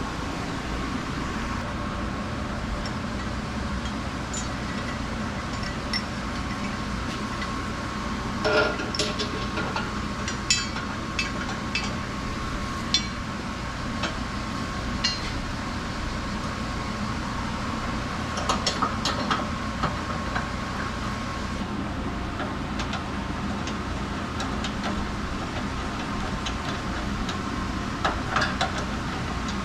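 Scattered light metallic clinks and taps of hand tools and parts being handled, in a few short clusters over a steady background hum.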